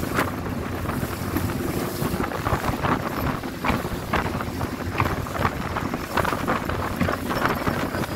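A small open boat under way on choppy water: its motor running steadily under heavy wind buffeting on the microphone, with the hull slapping through waves and spray splashing every half second or so.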